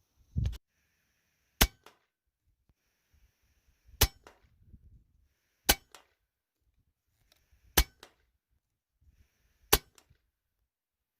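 Hatsan Nova .177 air rifle firing five shots about two seconds apart, each a sharp crack, with quieter handling noise between shots as the next slug is loaded.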